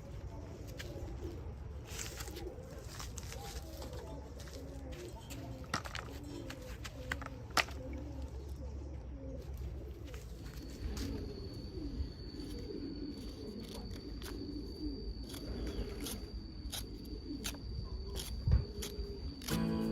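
A bird cooing over and over, over a low outdoor rumble, with scattered sharp clicks. A thin, steady high tone starts about halfway through.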